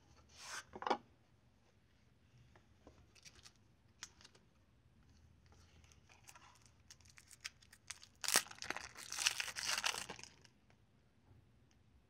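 Unboxing handling noises: the cardboard box scraping open near the start and scattered small taps and clicks. Then a loud stretch of about two seconds of plastic wrap crinkling and tearing as the sealed lighter is unwrapped.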